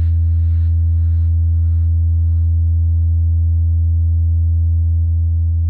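Govo 900 soundbar playing a bass-test DJ remix: a deep, steady bass tone held throughout. Over it a hissing beat pulses about twice a second and fades out about two and a half seconds in.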